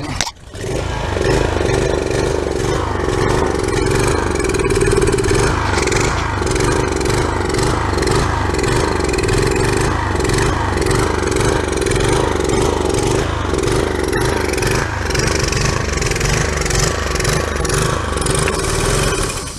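Briggs & Stratton small engine on a pressure washer starting about half a second in, running steadily, then shutting off at the very end. This is the engine that won't run properly, which the owner thinks the Sta-Bil fuel treatment may have made worse.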